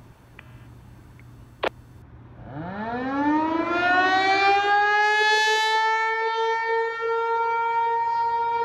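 American Signal Corporation Tempest T128 outdoor warning siren winding up from a standstill, its pitch rising over about three seconds and then holding a steady tone, sounded as the alert for a tornado warning drill. A single sharp click comes just before it starts.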